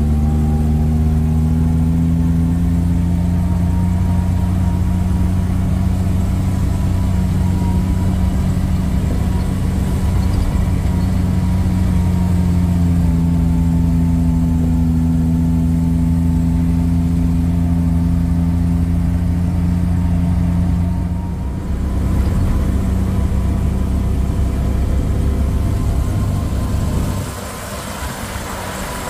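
Tour jeep's engine running as it drives, a steady low rumble whose pitch rises and falls gently with the throttle. It dips briefly about two-thirds of the way in, and near the end it drops back and runs quieter.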